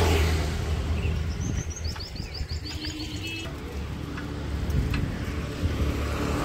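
Outdoor street ambience: a steady low rumble of traffic, with a vehicle passing at the start. A bird gives a quick series of about ten high, falling chirps about a second and a half in.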